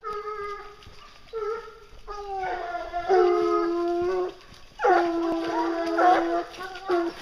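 Briquet scent hounds giving tongue on a wild boar's trail: a run of long, drawn-out bays from more than one dog, overlapping, the longest held for nearly two seconds.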